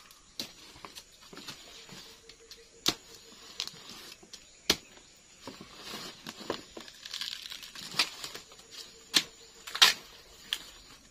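Machete chopping into the base of a giant swamp taro (palawan) plant to free its corm: sharp chops every second or two, with tearing and rustling of the roots, soil and leaves between them.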